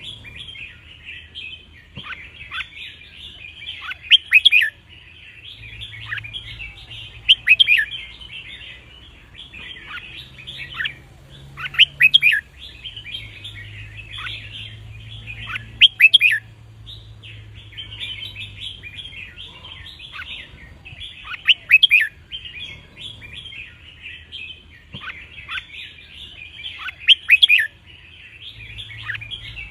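Red-whiskered bulbuls singing: about six loud, short song phrases a few seconds apart, over continuous chattering and chirping between them.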